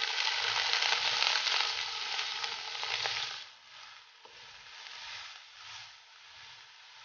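Chopped onion sizzling as it goes into hot oil in a nonstick wok and is stirred with a silicone spatula. The sizzle is loud for about the first three seconds, then settles to a quieter, steady frying.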